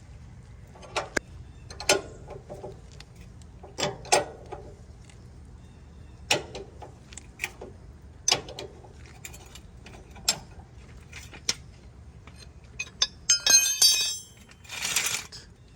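Vehicle jack being cranked down with its hooked rod handle: irregular metal clicks and clinks, a couple of seconds apart, then a brief jangling metallic rattle and a short scrape near the end.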